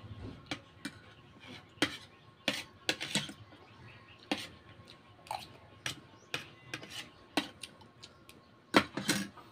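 Metal fork and spoon clinking and scraping against a ceramic plate while picking apart fish, irregular clinks about two a second, with a louder cluster of clinks near the end.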